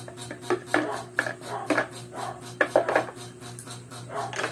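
Small wooden toy hand tools knocking and clattering together in a string of short, irregular taps.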